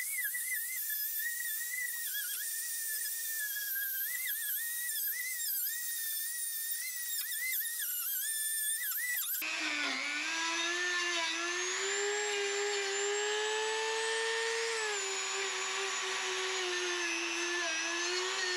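Power tool spinning a wire wheel against the body panel, stripping surface rust and loose paint: a high whine that wavers as it is pressed and lifted. About nine seconds in it cuts abruptly to a lower, steadier whine that rises slightly and drops back near the end.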